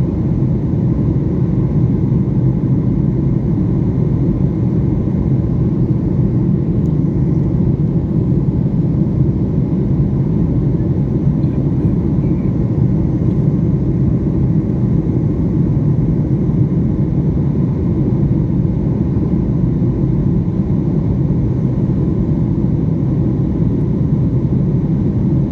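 Steady, loud low rumble of an airliner cabin in flight: engine and airflow noise heard from inside the plane, unchanging throughout.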